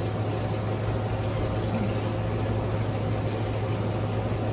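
Small patio waterfall running steadily, an even rush of falling water with a low steady hum underneath.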